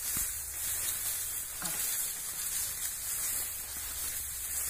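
Steady hiss of wind and rustling rice plants in a ripe paddy field, with a low rumble underneath.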